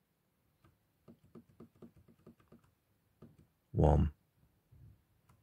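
Rapid light clicking of the BMW Z4 E89 indicator stalk's rocker and BC button, about four clicks a second, as a code is scrolled in digit by digit on the instrument cluster's setup menu. A brief loud vocal sound cuts in about four seconds in.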